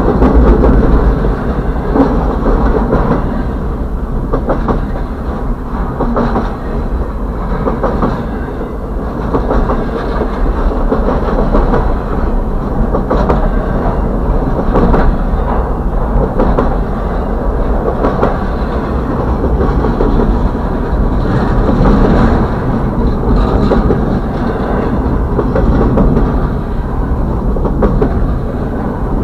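Freight train of double-stack intermodal container cars rolling past close by: a steady heavy rumble with wheels clicking over the rails throughout.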